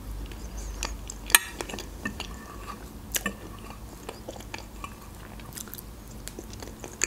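Close-up chewing and biting of a soft meringue roll with cream and strawberries, with a few sharp clicks of a metal fork against the plate.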